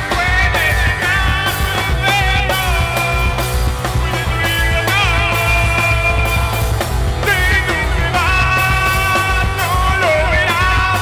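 A rock band playing loud, with drums, bass and electric guitars, and a melody line that slides and wavers in pitch over the top.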